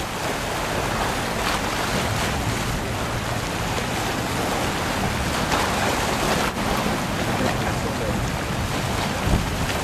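Steady wash of choppy sea waves, with wind buffeting the microphone.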